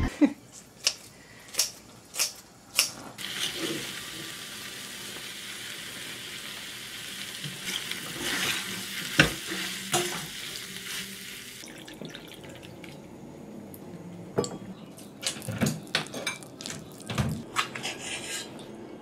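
Kitchen cooking sounds: a few sharp knocks, then rice frying in a metal pan with a steady sizzle while a spoon stirs and scrapes it for several seconds, then a spoon clinking against a bowl.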